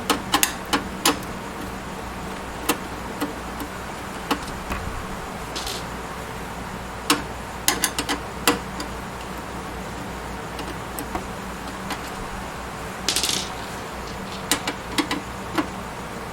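Irregular small metallic clicks and rattles of hard drive screws being unscrewed and handled in a desktop computer's metal drive bay, with two short scraping sounds, over a steady low hum.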